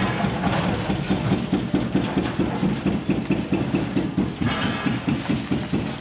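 Diesel engine of a Liebherr R954C demolition excavator running under load with a fast, even low throb. There is a brief higher rasp about four and a half seconds in.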